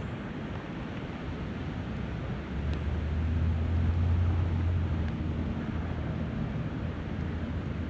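Steady rushing noise of a flowing river and rain, with wind on the microphone. A low hum comes in about two and a half seconds in, is the loudest thing until about five seconds in, then eases off.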